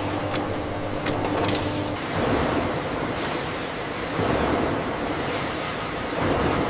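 Factory machinery running: a steady hum for about the first two seconds, then a rushing hiss that swells and fades about every two seconds.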